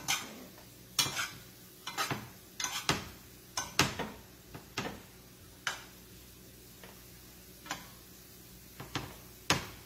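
A spoon clinking and knocking against a pan while broccoli is tossed and stirred: a dozen or so sharp, irregular clacks, roughly one a second.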